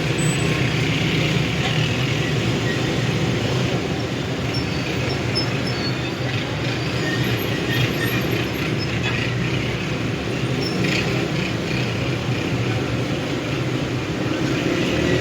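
Steady city street traffic noise: passing vehicles' engines and tyres as a continuous hum, with a few short, faint high-pitched squeaks now and then.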